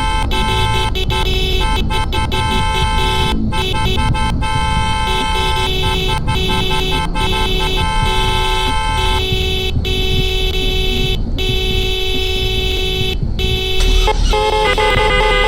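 Several car horns held down at once, sounding together as a steady discordant chord; the mix of pitches changes about nine seconds in and again near the end, with brief breaks in between.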